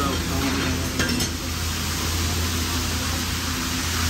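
Fish frying in a large pan of oil, a steady sizzle, over a steady low hum, with a light clink of utensils about a second in.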